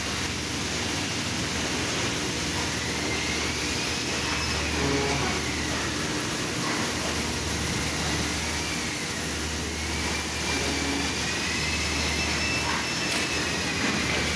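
Steady industrial machinery noise in a press shop: a low hum that comes and goes every two to three seconds, with a faint whine slowly wavering up and down above it.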